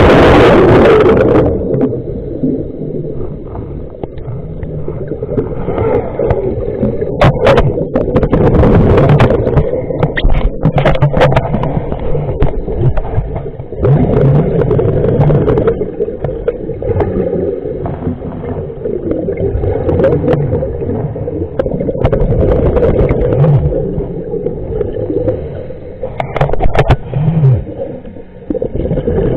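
Underwater recording of air bubbles gurgling past the microphone, most likely a scuba diver's exhaled bubbles: a loud rush of bubbles at the start, then repeated shorter bubbly surges and clicks over a steady muffled water hum.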